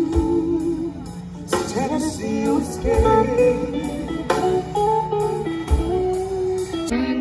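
A song: guitar over a steady beat, with a voice singing from about a second and a half in.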